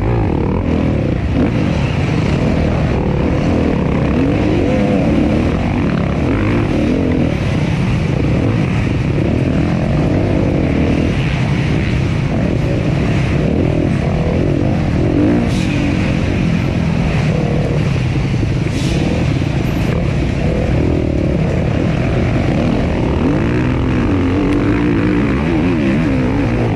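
Suzuki RM-Z250 four-stroke single-cylinder dirt bike engine ridden hard, its pitch rising and falling continually with the throttle, over a steady rushing noise.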